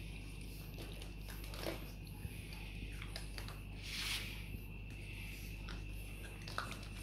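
Boston terrier puppy chewing and tugging at clothes in a plastic laundry basket: soft rustling of fabric and small scratchy clicks, with a brief louder rustle about four seconds in.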